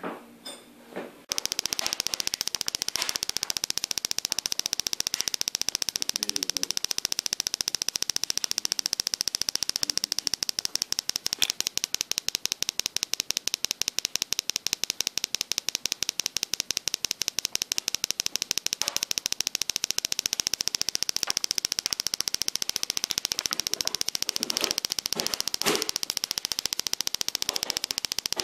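Small loudspeaker driven by an NE555 timer oscillator on a breadboard, putting out a steady, very rapid train of clicks that runs together into a buzz. A few separate clicks come just before it starts, about a second in.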